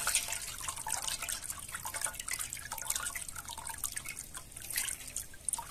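Watermelon juice dripping and trickling in thin streams from a perforated plastic bowl used as a strainer into a steel basin full of juice: an irregular patter of drips.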